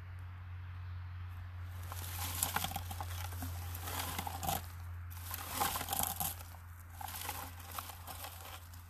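Hand-held berry picker with a comb of tines raked through blueberry bushes: an irregular rustling, scratchy crackle of leaves and stems being combed, starting about two seconds in, over a steady low hum.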